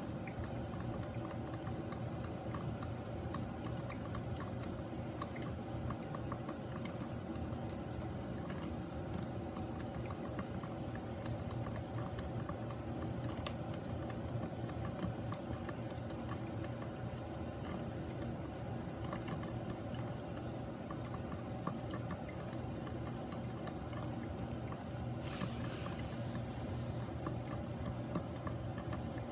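Mr. Coffee BL5 4-cup drip coffee maker brewing: rapid, irregular ticking and popping over a steady low hum, with a brief hiss near the end.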